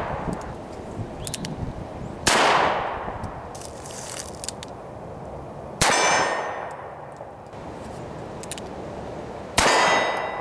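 Three shots from a Ruger Blackhawk .45 Colt single-action revolver, about three and a half seconds apart, each a sharp crack followed by a long echoing decay.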